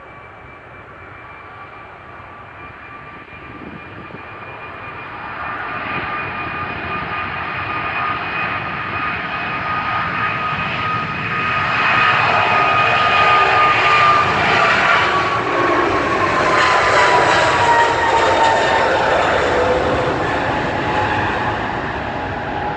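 Boeing 767-300 jet engines at takeoff power, growing steadily louder to a peak about halfway through and then easing off as the plane goes by. A whining tone over the roar drops in pitch as it passes.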